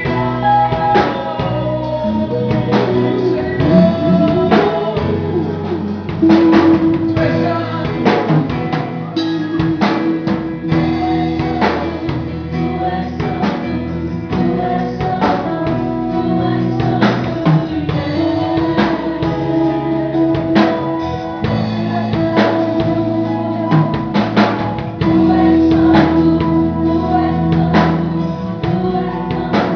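Christian worship music played by a band with a drum kit keeping a steady beat under sustained chords, and some singing.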